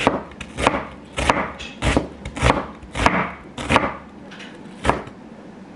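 Chinese cleaver slicing a red onion on a wooden cutting board: about eight slow, even chops, roughly one every half second, the last after a short pause about five seconds in.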